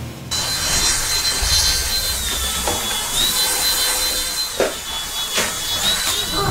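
Toy radio-control car's small electric motor whining and its wheels scraping over a wooden floor. The high whine dips in pitch and comes back up, with a few short knocks in the second half.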